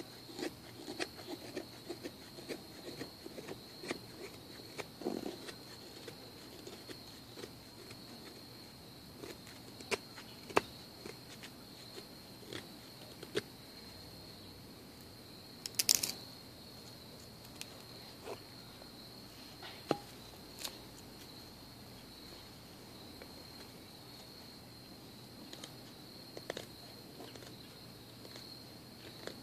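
Knife blade whittling a dry wooden stick into a feather stick: short, irregular scraping cuts and clicks, the loudest cluster about halfway through. A steady high insect drone, typical of crickets, runs beneath.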